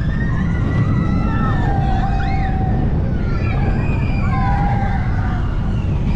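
On-ride sound of a Zierer family boomerang coaster: a steady loud rumble with wind on the microphone. Over it run drawn-out high wavering tones that rise and fall like a siren.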